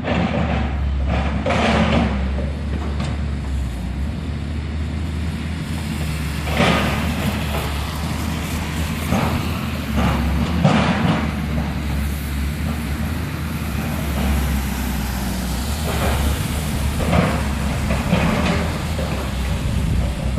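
A heavy machine's engine running steadily during a house demolition, with intermittent crunches and knocks of debris being broken and moved.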